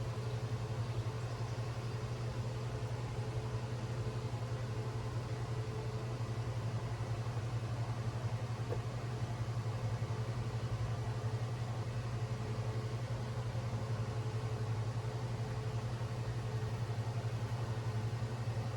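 Steady low background hum over a faint hiss, unchanging throughout.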